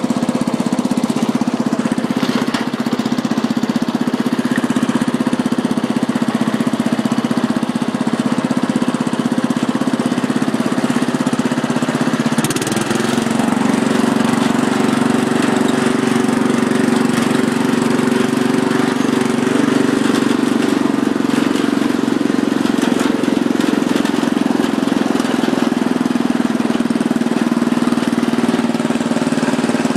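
Murray riding lawn mower's engine running steadily as the mower is driven across the yard; its pitch steps up slightly about twelve seconds in.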